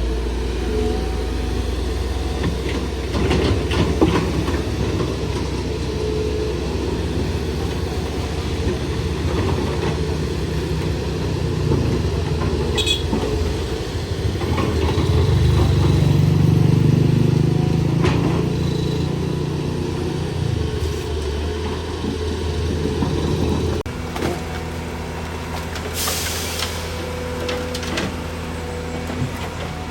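Highway traffic with heavy vehicles running past. A low engine rumble swells and fades about halfway through as a big truck or bus goes by. A short hiss of air comes near the end.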